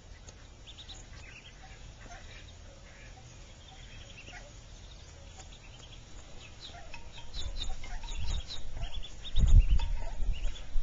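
Mallard ducklings peeping in many short, high cheeps while feeding, growing busier in the second half. Low rumbling thuds from a door build up over the last few seconds and are loudest near the end.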